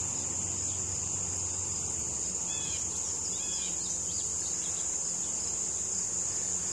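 A steady high-pitched insect drone, with a low hum of honeybees around an open hive beneath it. A few faint bird chirps come in about halfway through.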